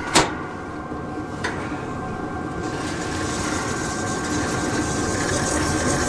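Propane camp stove being readied for lighting: a sharp click, then a fainter one, then about three seconds in the hiss of gas flowing from the burner, growing louder.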